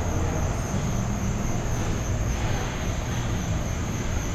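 Steady low rumbling background noise with a faint high whine, with no distinct knocks or changes.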